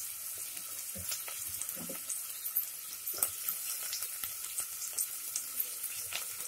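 Chopped onions, green chillies and curry leaves frying in hot sesame oil: a steady sizzle with scattered small pops.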